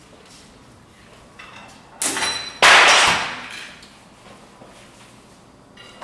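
A sharp, ringing clink about two seconds in, then a much louder crash that dies away over about a second.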